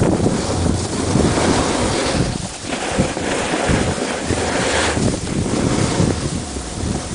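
Wind buffeting the microphone while moving down a ski slope, a loud rumbling rush that rises and falls and eases briefly about two and a half seconds in, with the hiss of snow sliding underneath.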